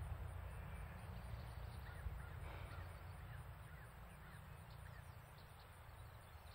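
Faint outdoor ambience: a low steady rumble with a few distant bird calls in the middle.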